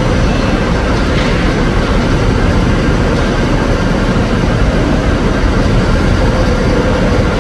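Hyd-Mech V-20APC vertical band saw running, a steady loud machine noise with no break or change.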